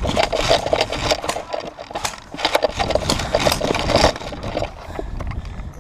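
Footsteps on dry dirt with gear and a carried rifle rattling, a dense run of irregular knocks that eases off about four seconds in.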